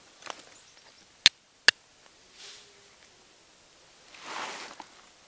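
Flint and steel: a C-shaped carbon-steel striker struck against a flint to throw sparks into tinder. Two sharp clicks just under half a second apart, with softer scraping strikes before and after and a longer scrape near the end.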